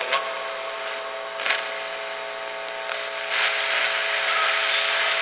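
Ghost box sweeping through radio stations: a steady static hiss broken by sharp clicks near the start and about a second and a half in, the static growing louder from about three seconds in. Among the chopped fragments the ghost hunter hears a voice he takes as "the what" or "the one".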